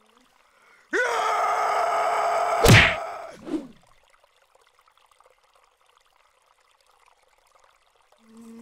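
Cartoon fight sound effects. A loud, harsh, sustained vocal-like cry, about two seconds long, is cut off by a sharp punch impact, then a short whoosh. After that it is nearly quiet until a low steady hum returns near the end.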